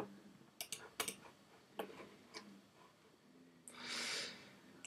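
Faint computer mouse clicks, a handful scattered over the first two seconds or so, then a short soft hiss about four seconds in.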